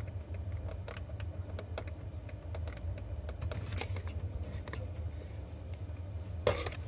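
Truck diesel engine idling with a low steady hum, with scattered light clicks and one louder brief rustle about six and a half seconds in.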